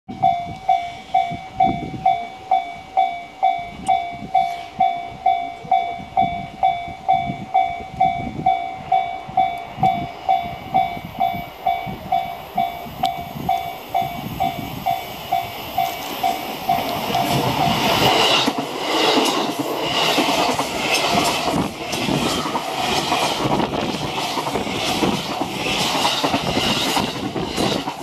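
Japanese level-crossing warning bell ringing steadily, about two strokes a second. A little past halfway a JR East 251 series electric express train passes, and its wheels clatter over the rail joints, drowning out the bell.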